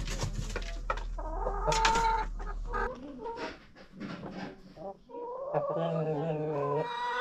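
Chickens in a coop clucking: a string of short calls, then a longer, wavering call in the second half.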